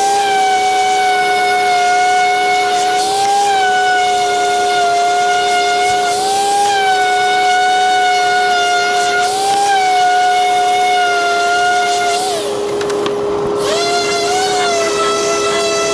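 Electric power sander running on wood with a steady high whine whose pitch lifts slightly every few seconds. About twelve seconds in the whine drops away and comes back a second or so later.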